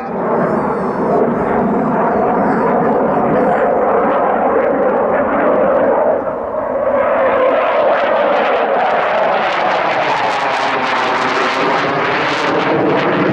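Twin turbofan engines of a MiG-35 fighter jet flying a display pass: a loud, continuous rush of jet noise with a wavering, sweeping quality. About halfway through, a tone falls in pitch as the jet goes by.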